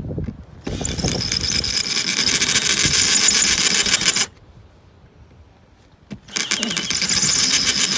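Ryobi cordless drill boring into a stainless steel plate, running twice: a run of about three and a half seconds starting just under a second in, a pause, then a second run from about six seconds in, the bit cutting the metal with a steady high whine.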